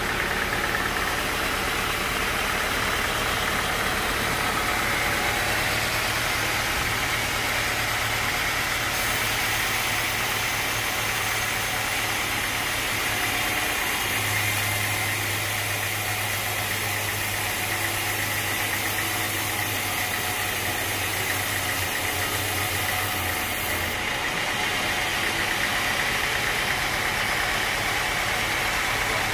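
Sawmill machinery running steadily: a constant engine-like hum with a steady higher whine over it, unchanging throughout.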